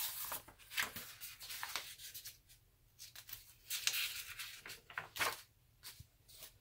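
Paper notebook pages being turned and handled, rustling in irregular bursts that start suddenly right at the beginning.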